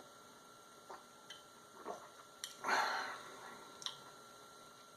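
Faint small clicks and taps, a few of them, with one short breathy rush about two and a half seconds in, over a faint steady high whine.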